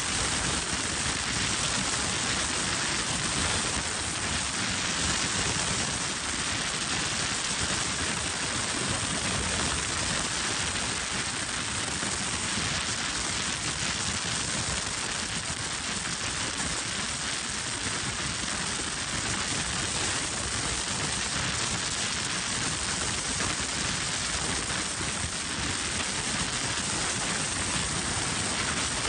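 Wind rushing past a car driving at highway speed, a steady even hiss with no change in level.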